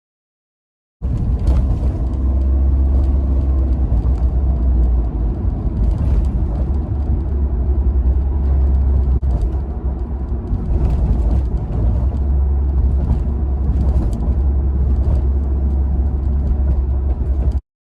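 Toyota Roomy on the move, heard from inside the cabin: a steady low road rumble with irregular sharp clicks and creaks scattered through it, the sliding-door rattle and creak that this repair targets. It starts abruptly about a second in and cuts off just before the end.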